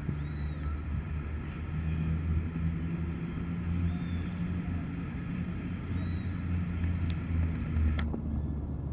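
Alsthom diesel railcar approaching slowly, its engine giving a steady low drone. Two short high chirps, near the start and again about six seconds in, and a sharp click about seven seconds in.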